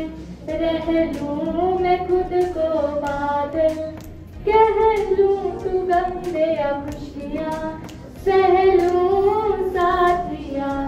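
A song with a high singing voice in long melodic phrases, over a light regular beat.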